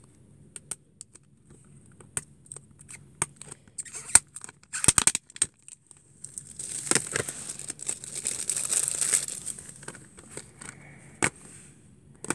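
Clear plastic wrapping being torn and crumpled off a Blu-ray case, with a few seconds of loud crinkling in the middle. Scattered sharp clicks and snaps of plastic come before and after it.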